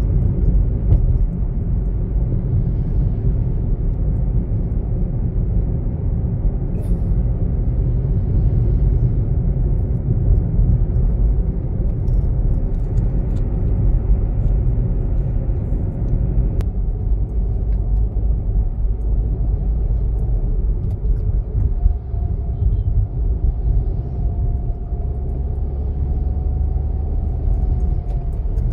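Steady low rumble of a car driving along a paved road, engine and tyre noise heard from inside the cabin. A faint steady whine joins in during the last few seconds.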